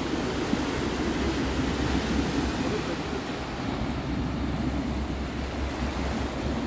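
Wind buffeting the microphone with a steady low rumble, over the wash of surf breaking on shoreline rocks.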